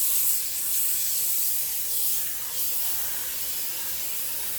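Sandpaper held by hand against a go-kart racing tire on a tire resurfacing machine: a steady, hissing rasp of abrasive on rubber that swells and eases.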